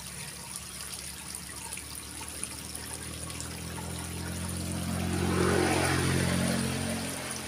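Water running in a small irrigation ditch, with an engine hum that grows louder to a peak about five to six seconds in and then fades, as a vehicle passes.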